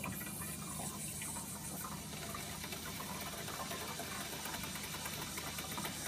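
Water from the supply line rushing steadily through a ball-float fill valve into a Keurig coffee maker's reservoir as it refills after a brew.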